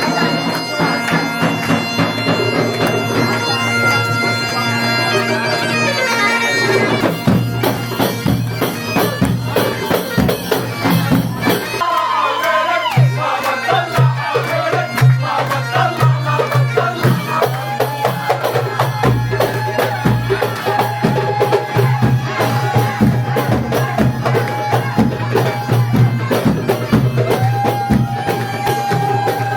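Bagpipes playing a melody over a steady drone. Drums join in about seven seconds in and keep a rhythm under the pipes.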